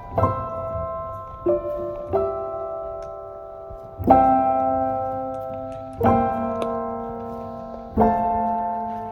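Background music: slow piano chords, each struck and left to ring and fade, a new chord every one to two seconds.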